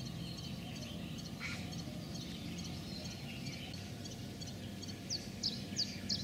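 Small birds chirping, with a quick run of four or five falling whistled notes near the end, over a steady low hum.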